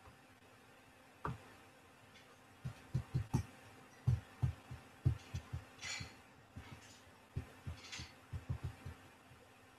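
Quiet, irregular soft low thumps, a dozen or more, like knocks or rubbing against a microphone, with two brief hisses about six and eight seconds in.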